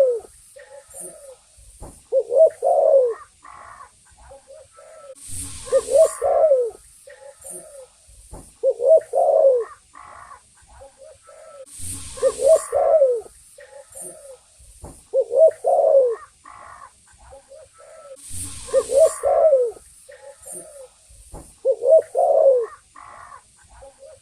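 Spotted dove (tekukur) cooing: repeated phrases of a few low notes about every three seconds. A short burst of noise comes about every six to seven seconds over a faint steady high hiss.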